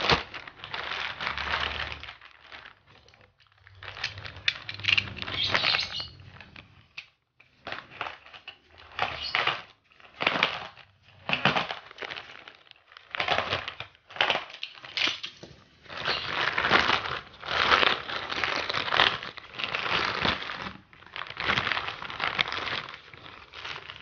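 Plastic courier mailer bag crinkling and rustling as it is handled and opened, in irregular bursts with short pauses.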